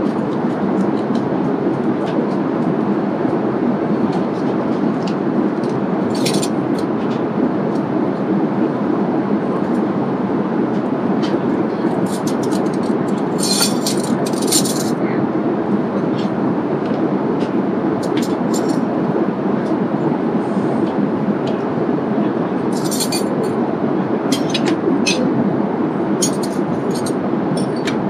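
Steady in-flight cabin noise of a Boeing 787-8 airliner. Light clinks of metal cutlery against plates and the tray sit on top of it, in clusters, most of them around the middle and near the end.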